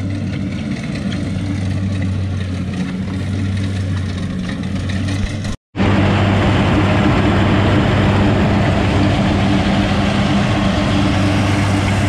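Rice combine harvester's engine running steadily with a low drone. It cuts out for a moment just past halfway, then comes back louder and noisier.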